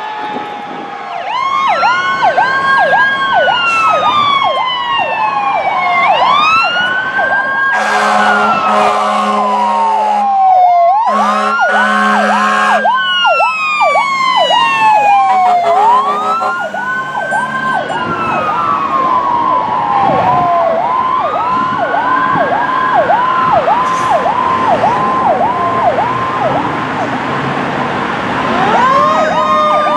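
Electronic sirens on fire-rescue apparatus responding: one in a slow rising-and-falling wail, another in a fast repeating yelp, with two long low horn blasts about a third of the way in. A fresh siren starts up near the end.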